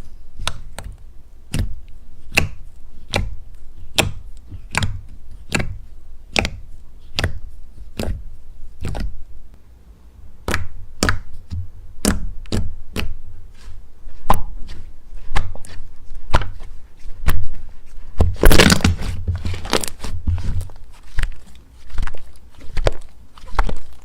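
Slime being squeezed and poked, giving sharp popping clicks about two a second, with a denser run of crackling about three-quarters of the way through.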